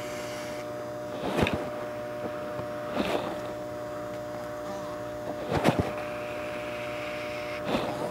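Hand-operated reverse fluid injection pump being stroked four times, about every two seconds, over a steady hum. It is forcing clutch fluid in through the slave cylinder's bleed screw to bleed air out of the clutch hydraulic system.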